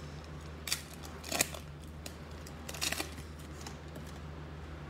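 A trading-card pack wrapper being torn open: three short, sharp crinkling rips about a second apart over a steady low hum.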